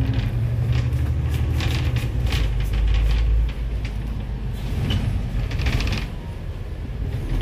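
Low rumble of a moving vehicle with irregular rattles and clicks; the rumble drops a little about three and a half seconds in.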